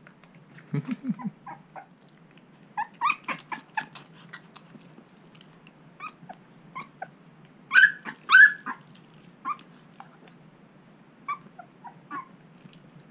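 Shar Pei puppy, about twelve days old, crying: repeated short high-pitched squeals and whimpers in bursts, the two loudest about eight seconds in.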